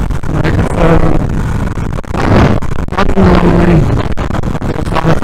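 Motorcycle ride heard through an external microphone in a closed helmet: a loud, bassy rumble of wind and road noise, with the engine's steady note showing through now and then.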